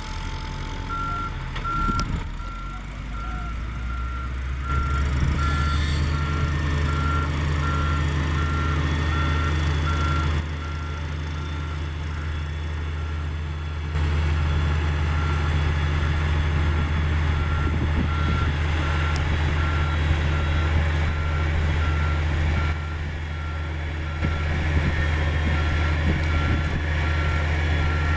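Komatsu GD555 motor grader reversing, its back-up alarm beeping steadily about once a second over the diesel engine, which swells and eases in load several times.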